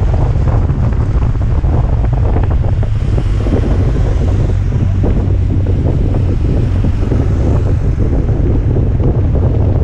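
Loud, steady wind buffeting on the action camera's microphone from the speed of a fast downhill run on a kick scooter: a heavy low rumble with a rushing hiss above it.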